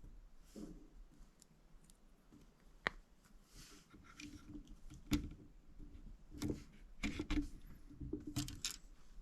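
Small plastic building-brick pieces being handled, with a few scattered sharp clicks and light rustling.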